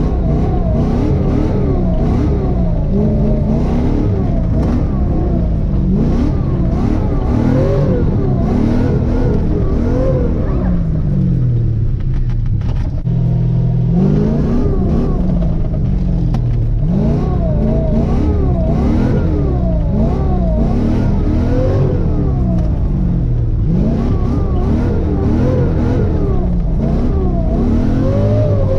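LS1 V8 in a Mazda RX-7 FC revving hard, its pitch climbing and falling back again and again, with a short steady stretch about halfway through.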